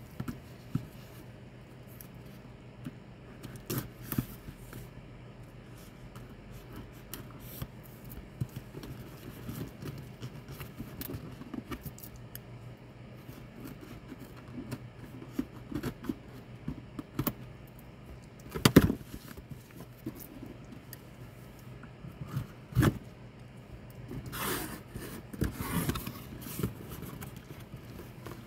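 Scissors snipping and sliding along the packing tape of a cardboard box, with scattered clicks and scrapes of the cardboard being handled. Two louder knocks come about two-thirds of the way through, and the cardboard flaps scrape as they are pulled open near the end.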